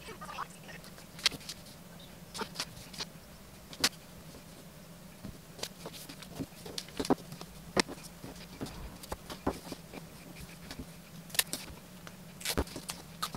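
Paper pattern strips being slid, lifted and pressed flat on a cutting mat: scattered short paper rustles and light taps, with a faint steady low hum underneath.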